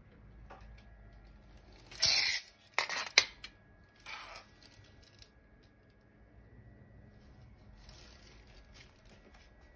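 Handling of an old cardboard toy box and its plastic track sections: a loud scrape about two seconds in, a few sharp clacks right after, a softer scrape a second later, and faint rustling near the end.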